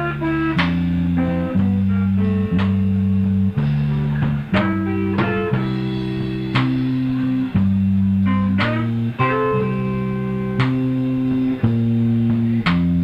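Live blues band playing an instrumental passage: guitar lines over a steady bass line, with sharp note attacks about once a second and no singing.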